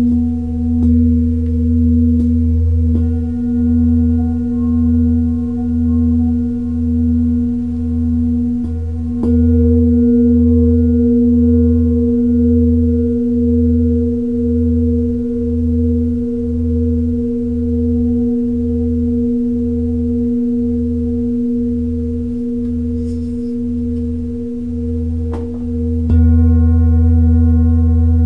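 Large hand-held metal singing bowl struck with a felt-headed mallet, ringing on with a deep hum and several higher overtones that waver in a slow, even pulse. Fresh strikes about nine seconds in and again near the end make it ring louder.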